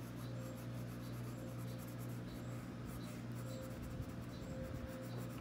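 Colored pencil scratching on paper in many quick back-and-forth shading strokes, over a steady low hum.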